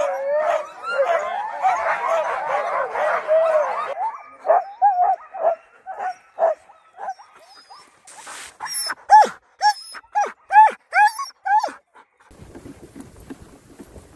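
Many harnessed sled huskies barking, yelping and howling all at once, the excited racket of sled dogs eager to run. After about four seconds the chorus thins to single sharp rising yelps and barks, and near the end it gives way to a soft low rushing as the dog sled runs over snow.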